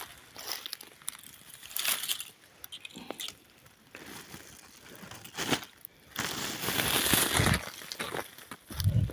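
Dry brush and leaf litter crunching and crackling in irregular bursts, with a louder, denser stretch of crackling about six seconds in and a dull thump near the end.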